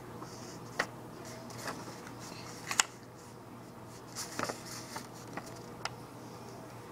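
Handling noise from a large pencil and a sheet of paper close to the microphone: a few scattered sharp taps and clicks with some paper rustling, the loudest tap nearly three seconds in. A steady low hum runs underneath.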